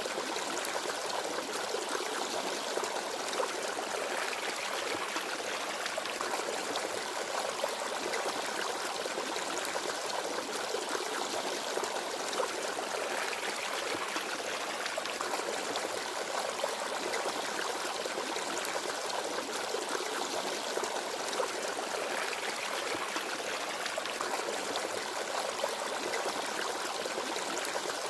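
Small forest stream babbling and trickling over stones, a steady flow of water.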